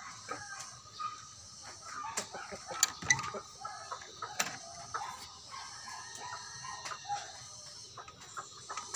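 Chickens clucking, with a few sharp metallic clicks and rattles in the middle as the metal latch on a bamboo coop door is worked.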